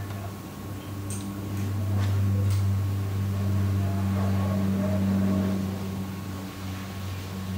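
A steady low hum runs throughout. Over it come a few light water splashes and clicks from about one to five seconds in, as a young western lowland gorilla paddles its hand in a shallow pool.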